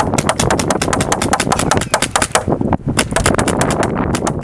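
Paintball marker firing in rapid strings of shots, with a short break about two and a half seconds in.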